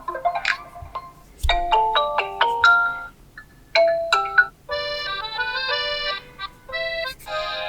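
Short electronic ringtone melodies from an Honor Magic4 Lite 5G's speaker, one after another. Each is cut off after a second or two, with brief gaps and a change of tune between them, as different ringtones are previewed in the phone's sound settings.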